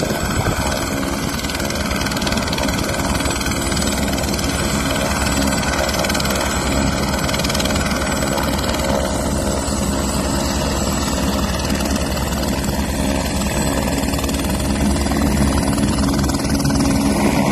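Light single-engine helicopter running on the ground with its rotor turning: a steady turbine and rotor noise with a fast, even beat, growing a little louder near the end.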